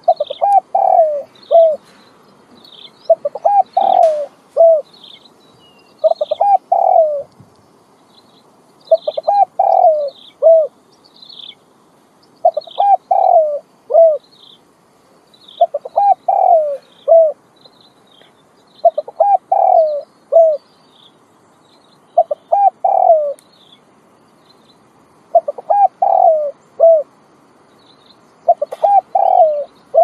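Common wood pigeon cooing: a phrase of several low coos, repeated about every three seconds. Small birds chirp faintly and high in the background.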